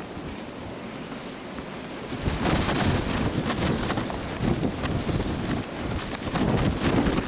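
Blizzard wind gusting against the microphone, a rushing noise that grows louder and buffets about two seconds in.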